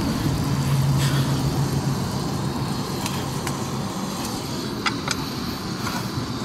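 Wind rushing over the microphone together with the hiss of a canister camp stove burning under a frying pan: a steady low rushing noise, with a low hum for the first few seconds and a few light clicks about five seconds in.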